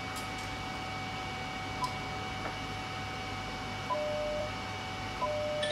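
ICOM IC-7100 transceiver giving its key-press beeps as buttons are pressed on its control head: a short pip about two seconds in, then near four and five seconds a short pip followed each time by a longer, lower beep lasting about half a second. A faint steady electronic tone and hiss run underneath.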